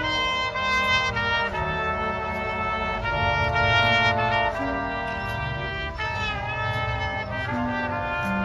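A marching band's brass section, led by trumpets with trombones, playing sustained chords that change every second or so, with a brief pitch dip and recovery in the upper notes about six seconds in.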